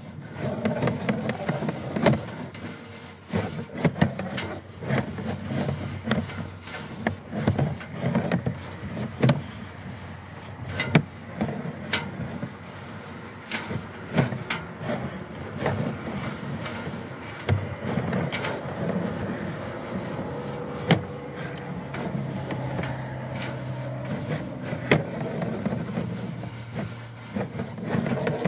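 Pipe-inspection camera push cable being fed off its reel into the pipe: irregular clicks, knocks and rattles over a low steady hum.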